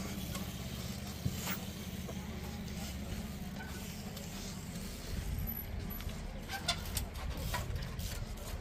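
Trials bicycle being ridden and hopped over rocks: a few short, sharp knocks and clicks, bunched in the second half, over a steady low hum.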